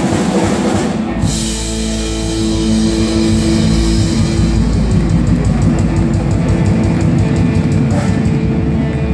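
Live rock band playing: electric guitars and bass over a drum kit, with busy drumming in the first second and then held guitar chords over a steady beat.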